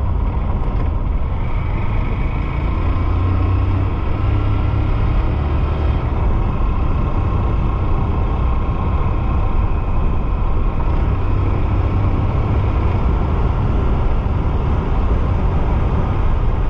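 A 2015 Honda CG 150 Fan motorcycle under way at road speed, its 150 cc single-cylinder engine running steadily under a constant rush of noise.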